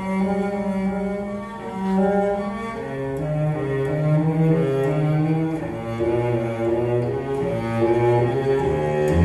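Cello music played back through a pair of Tannoy Canterbury GR loudspeakers: slow, sustained bowed notes, one after another, with a deep low note near the end.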